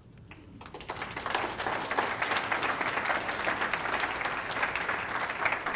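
Audience applauding, starting about half a second in and swelling over the next second to a steady clapping.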